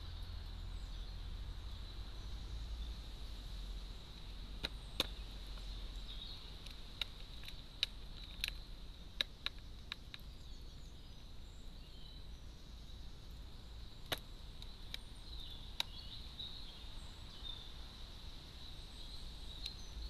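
Carrion crow pecking at seeds in a feeding tray: scattered sharp beak taps, bunched about five to ten seconds in and again around fourteen to sixteen seconds in, over a steady low rumble and a faint high whine.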